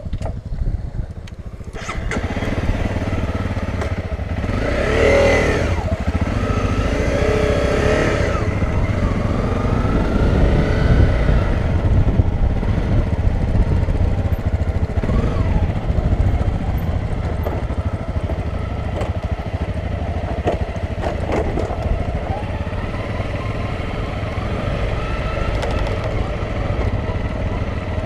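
Honda CRF250L single-cylinder dirt bike engine pulling away about two seconds in, revving up through the gears, then running steadily under way.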